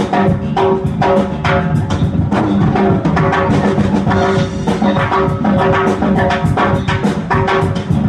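Live funk band playing a busy groove: drum kit and congas hitting steadily under electric guitar, recorded as room sound.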